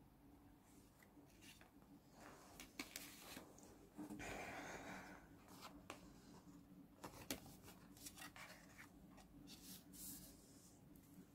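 Quiet paper and stationery handling: scattered soft taps and rustles, with a longer rubbing, rustling sound lasting about a second from about four seconds in.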